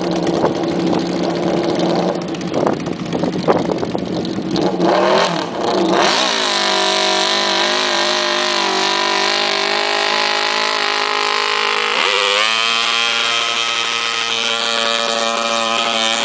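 Modified lawn mower pulling engine running hard. It sounds rough and uneven with sharp pops at first. About six seconds in it settles into a steady high-revving drone, and about twelve seconds in the pitch climbs quickly and holds higher.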